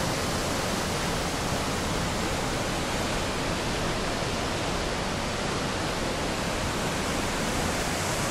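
River water rushing and churning through a rocky gorge: a steady, even roar of whitewater.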